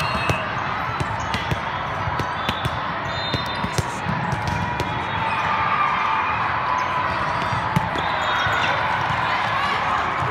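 Gym crowd noise during a game: a steady hubbub of many voices, with a ball striking the floor or being hit again and again, and short high squeaks.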